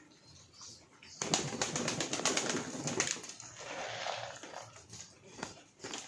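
A flock of domestic pigeons feeding on the floor: a loud flurry of wing flapping and scuffling from about a second in until about three seconds, then softer cooing.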